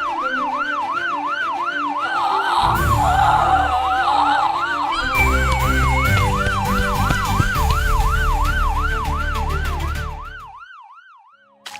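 Police siren in a fast yelp, its pitch swooping up and down about three times a second over background music, fading out shortly before the end.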